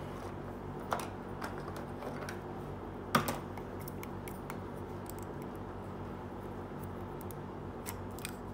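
Small plastic toy pieces clicking and tapping as they are picked up and handled, with one sharper click about three seconds in, over a steady low hum.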